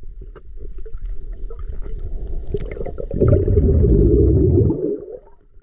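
Underwater sound picked up by a submerged camera: a muffled low rumble with scattered faint clicks, then about three seconds in a loud low rushing of water that lasts nearly two seconds as the swimmer moves up through open water. It fades out just before he surfaces.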